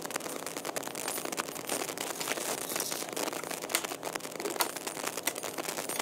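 Plastic packaging and an anti-static bag crinkling and rustling as they are handled, with many small clicks and two sharper taps about four and four and a half seconds in.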